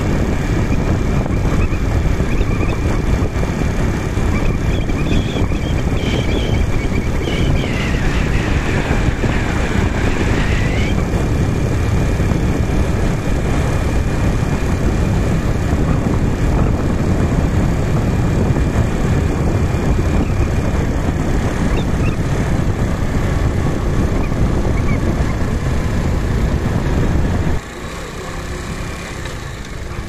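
Wind buffeting the microphone and road and engine noise from a moving vehicle, a loud steady rush. It drops suddenly to a quieter level near the end.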